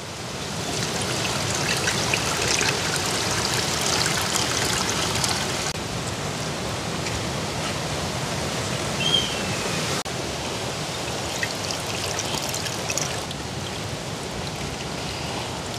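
Water poured through grated coconut in a plastic strainer, coconut milk running and trickling into a large metal pot in a steady stream.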